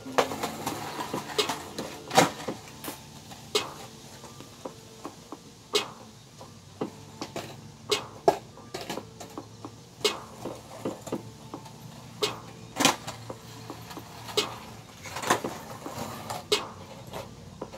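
Skateboards clacking and knocking on a concrete sidewalk: irregular sharp clacks, a few much louder than the rest.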